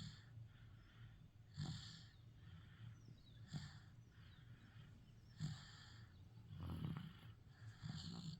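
Faint snoring from a sleeper who has a cough: a short rasping breath about every two seconds.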